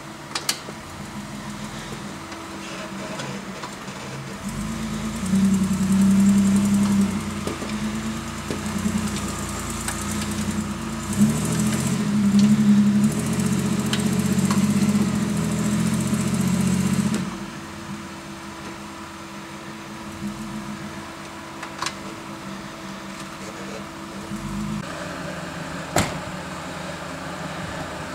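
Nissan Pathfinder's engine working at low speed while rock crawling over boulders. The engine pulls harder for about twelve seconds from around five seconds in, then settles back to a low, steady run. A few sharp knocks are scattered through it.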